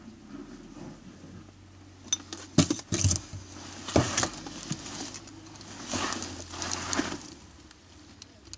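A run of sharp knocks and rattling clatter as a pick-headed hand tool strikes and pries at wooden boards, from about two seconds in until about seven seconds, with the loudest blows near the start.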